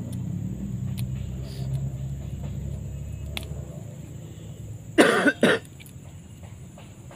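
A person coughs twice in quick succession about five seconds in. Before that a low, steady rumble fades away.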